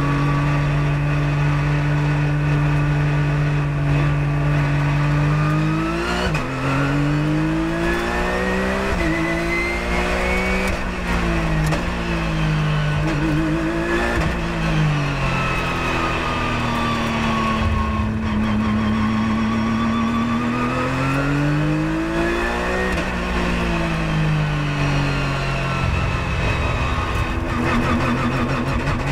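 Porsche 997.1 GT3 Cup race car's flat-six engine heard from inside the cockpit. It holds a steady note for about six seconds, then the revs rise and fall several times as the car accelerates, shifts and slows, before settling to a steady note again near the end.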